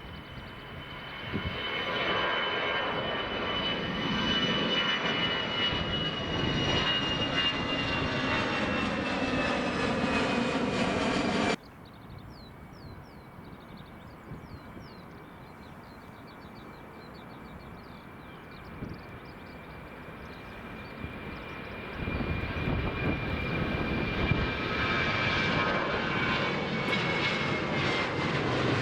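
An Airbus A319's jet engines at take-off power, with a high whine that slowly falls in pitch as the airliner passes. About halfway through, the sound cuts abruptly to a quieter stretch with short high chirps over a distant engine hum. Near the end a Boeing 737-800's jet engines grow loud at take-off thrust, again with a high whine sliding slowly downward.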